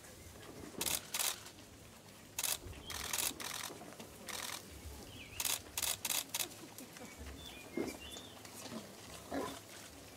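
Rapid bursts of camera shutter clicks from press photographers, coming in quick runs through the first half. Near the end come two short low calls from elephant calves.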